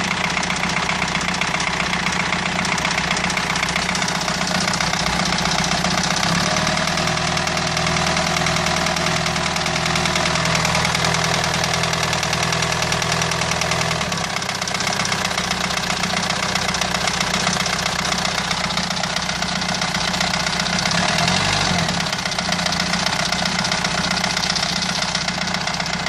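Renault 2.2 dCi four-cylinder turbodiesel engine running steadily. Its low drone grows stronger for several seconds midway, then settles back, with a brief change in pitch near the end.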